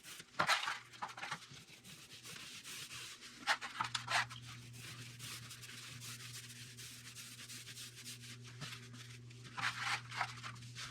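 Small paint roller rolling wall paint onto drywall, a soft swishing rub with a few louder strokes, over a faint low hum.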